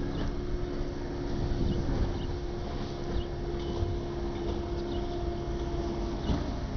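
Wind rumbling on the microphone, with a faint steady distant drone held for about six seconds before it stops, and faint bird chirps now and then.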